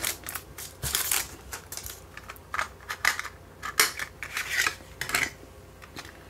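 Hard plastic minidisc case being handled and opened and a Denon 74-minute minidisc slid out of it: a string of irregular small plastic clicks and rustles.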